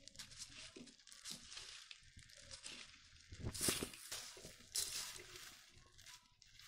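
Puffed rice and chanachur being tossed and mixed by hand in a stainless steel bowl: irregular crisp rustling and crackling, with a couple of louder rustles about halfway through.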